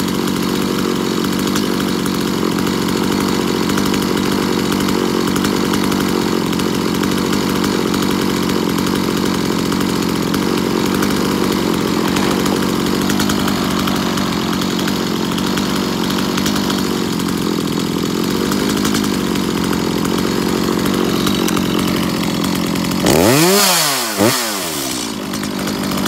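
Stihl MS250 chainsaw's two-stroke engine idling steadily at a raised idle speed, now running again after its ignition coil air gap was reset. Near the end the throttle is blipped twice, the revs rising and falling quickly, and it drops back to idle without stalling.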